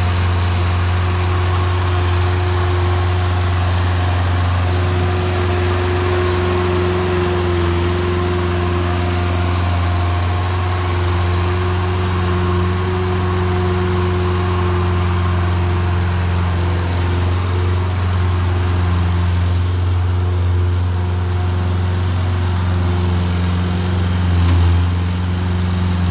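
ASV 4500 HD skid steer engine running at a steady speed, with a brief slight swell in level near the end.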